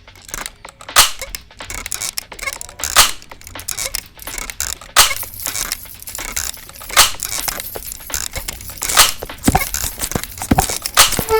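Close-miked crinkling, tearing and crunching of everyday objects being handled for sound effects, with sharp knocks about every two seconds.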